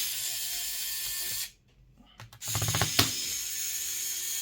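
Small electric screwdriver running in two short bursts, backing out laptop case screws: one burst for about a second and a half, then after a short pause a longer one that opens with a quick rattle of clicks.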